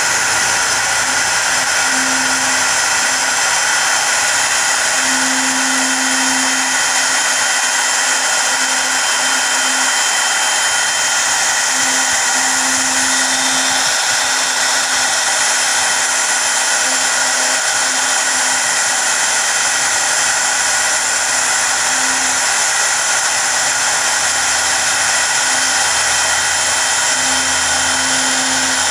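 CNC router spindle running steadily at high speed as its V-bit engraves lettering into a wood board, giving a loud, constant high-pitched whine and hiss. A lower hum swells and fades every few seconds as the cut goes on.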